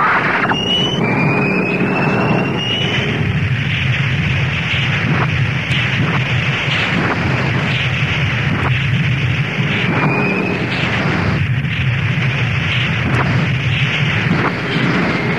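Animated space-battle sound effects played backwards: a continuous dense rumble of fighter-jet engines and explosions, with sharp cracks every second or so and a few short rising whistles.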